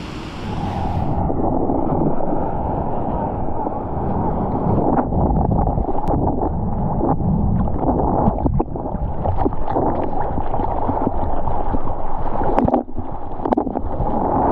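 Wind and surf noise on the microphone, then about a second in the sound turns dull and muffled: water rushing, sloshing and splashing around a GoPro at water level on a surfboard, with irregular sharp splashes and wind buffeting.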